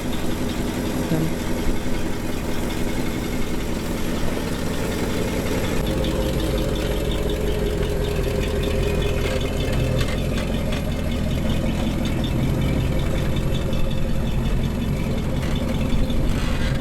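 Jeep CJ5 engine running steadily at low revs.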